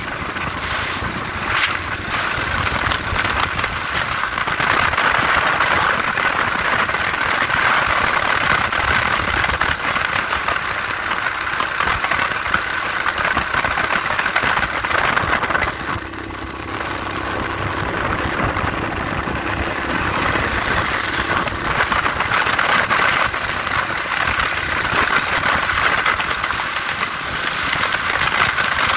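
Motorcycle engine running while riding, mixed with wind noise on the microphone; it eases off briefly about halfway through, then picks up again.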